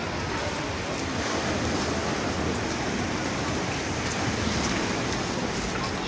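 Steady rushing noise of rough sea surf breaking below the shore.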